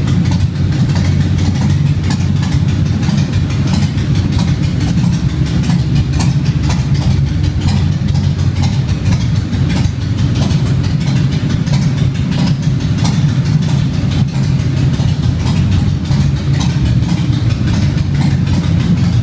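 Motorcycle engine idling steadily: a continuous low rumble with no revving.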